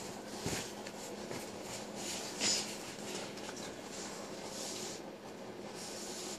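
Soft movement noises of people on a tile floor, with a light thump about half a second in and a brief sharp scuff about two and a half seconds in, over a low steady hum.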